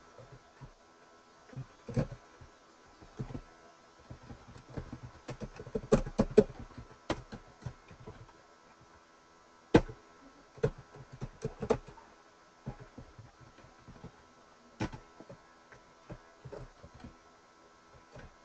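Computer keyboard keys clicking in irregular bursts with short pauses as code is typed, over a faint steady electrical hum.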